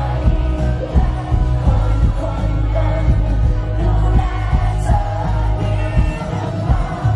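Live band performance of a Thai pop-rock song: a male lead vocalist singing over heavy bass and drums.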